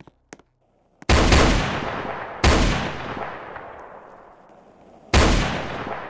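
Three heavy explosion booms, each hitting suddenly and fading slowly over a couple of seconds: the first about a second in, the second a second and a half later, the third near the end.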